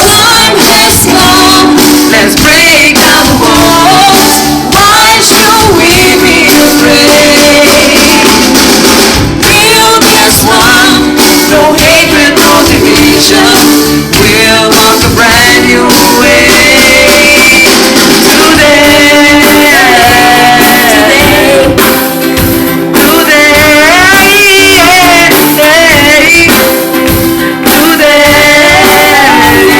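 Song with singing over instrumental backing.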